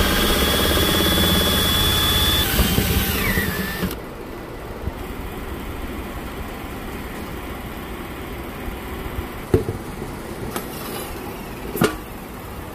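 Cordless drill spinning a paint-mixing paddle in a can of paint, running at a steady whine, then slowing with a falling pitch and stopping about four seconds in. Later, two sharp knocks.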